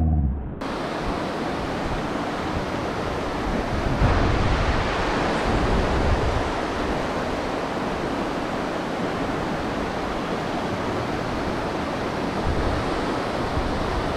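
Steady rush of a mountain stream running over rocks through riffles and rapids, cutting in sharply about half a second in.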